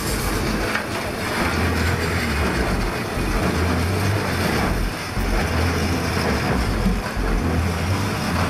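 Steam road roller built by Hermann Hillmann of Bramsche, running as it drives slowly over a gravel road, with a steady low rumble.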